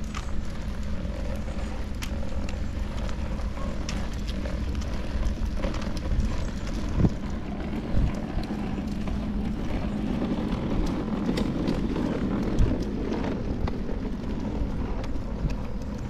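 Outdoor park ambience on a walk: a steady low rumble with a few short, sharp knocks about seven, eight and twelve and a half seconds in.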